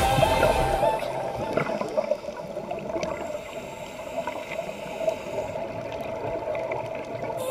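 Background music fades out about a second in, leaving steady underwater rushing and gurgling water sound picked up by the camera.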